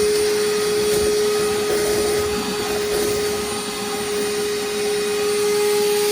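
Vacuum motor running at full speed, a steady whine over a rushing of air, as it sucks debris out from under a bass boat's floor.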